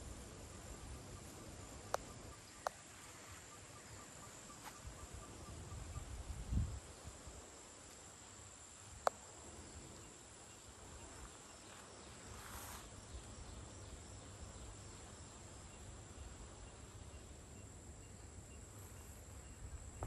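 Steady high-pitched insect drone of the rainforest, with a faint rapid pulsing call in the first few seconds. A few sharp clicks and one short low rumble about six seconds in.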